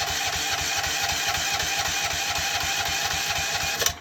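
Electric starter cranking the excavator's Briggs & Stratton engine with an even, rapid pulsing, without it firing, then cutting off suddenly near the end. This fits a compression check, where the engine reaches only about 75 against a minimum of 85, a sign of an internal engine fault.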